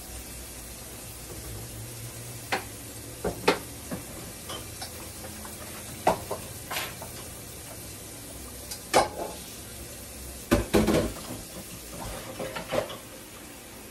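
Salmon croquettes frying in shallow oil in a nonstick pan: a steady sizzle with scattered sharp pops, several of them bunched together about three-quarters of the way through.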